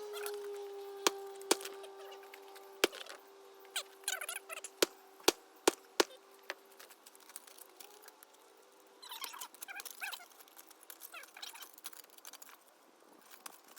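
A concrete saw winding down after shut-off: a steady whine that fades away over the first eight seconds. Sharp knocks and clicks come about a second in, again near three seconds, and in a quick cluster between five and six seconds.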